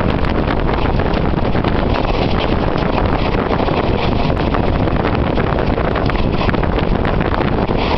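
Wind rushing steadily over the microphone at the open window of a moving train, with the train's running noise beneath it.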